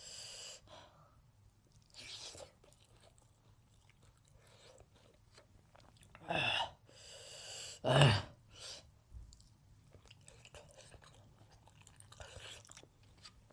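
Close-miked chewing and crunching of a mouthful of food, with wet mouth sounds coming in irregular short bursts and two louder ones a little past the middle.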